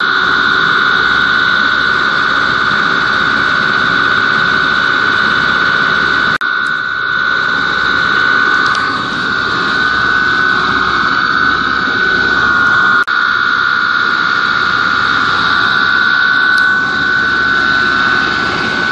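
Large three-phase slip-ring induction motor for a ball mill, running with nothing on its shaft: a loud, steady whine with a strong high tone over a hum. It drops out for an instant twice, about a third and two thirds of the way through.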